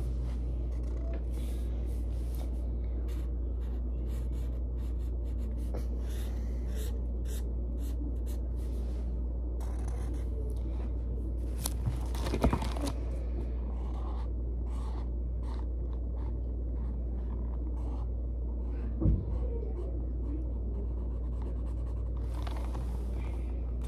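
Felt-tip marker rubbing on paper in many short strokes as squares are colored in, over a steady low hum. Two louder knocks, one about halfway through and another a few seconds later.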